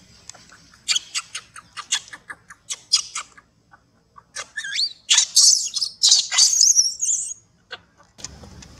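Baby macaque's distress calls while its mother holds it down: a quick run of short high squeaks, then about three seconds of loud, wavering high-pitched screaming.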